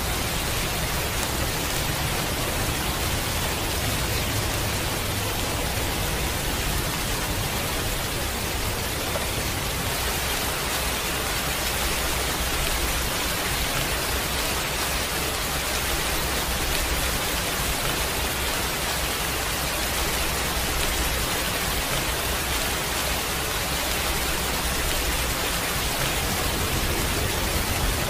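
Heavy rain falling steadily: a constant even hiss with a low rumble underneath, no single drops or thunder standing out.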